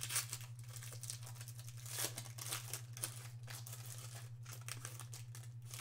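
Foil wrapper of a Panini Zenith football card pack crinkling and rustling in the hands as it is opened and the cards are pulled out, in many short irregular crackles over a steady low hum.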